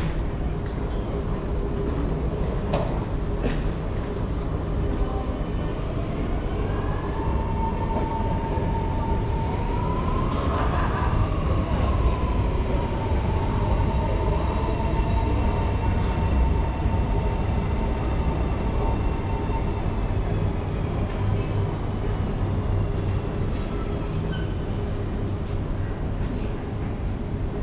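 Electric MRT train pulling into an underground station behind platform screen doors, over a steady low rumble and hum. About seven seconds in, a motor whine starts; it rises, then falls and fades as the train brakes to a stop.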